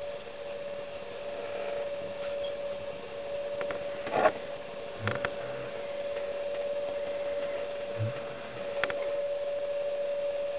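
Steady mid-pitched hum of a homemade audio-frequency resonant coil water heater running. A sharp knock about four seconds in is the loudest sound, and a few lighter clicks follow.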